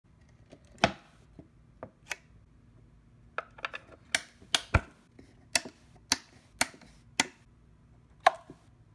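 A series of about a dozen sharp, unevenly spaced clicks from small toggle switches being flipped by hand on a switch-operated LCD control box.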